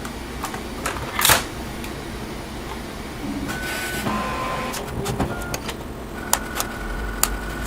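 Scattered clicks and knocks of a laptop and its plastic parts being handled over a steady low hum. The loudest click comes about a second in and a cluster follows past the middle. Several short, steady high-pitched tones sound in the second half.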